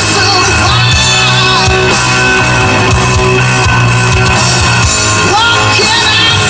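A loud hard rock song with singing, playing over the car stereo.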